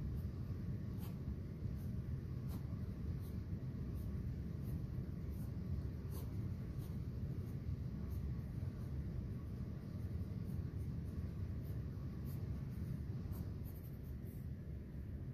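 Graphite pencil scratching and tapping on drawing paper in short, irregular strokes, several a second, over a steady low room hum.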